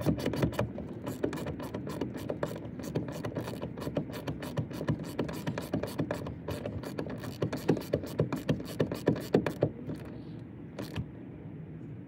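Socket ratchet wrench clicking rapidly as it runs down the bolt of a seat belt's upper anchor on the door pillar. The clicking thins to a few last clicks near the end.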